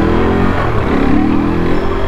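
KTM RC390's single-cylinder engine revving under acceleration, its pitch dipping about half a second in and then climbing again, over a steady low rumble.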